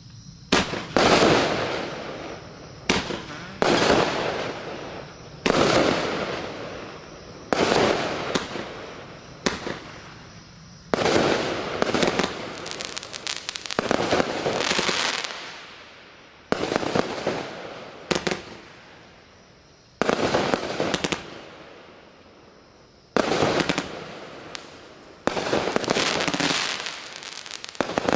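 Klasek C293MA14 'Amazing Fireworks' consumer cake firing a long sequence of shots, about one every one to two seconds with some in quick pairs. Each is a sharp bang followed by a noisy burst that fades away.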